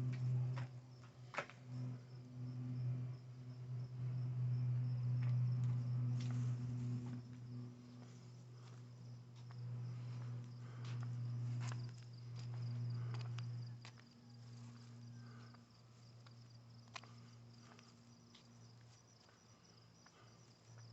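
Insects, likely crickets, trilling steadily in a high, rapidly pulsing tone, over a louder low hum that swells and fades, with scattered light clicks.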